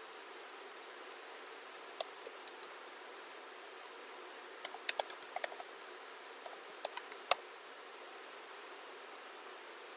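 Computer keyboard being typed on in three short runs of keystrokes: a few about two seconds in, a quicker run of about ten around five seconds, and a few more near seven seconds. A steady hiss sits underneath.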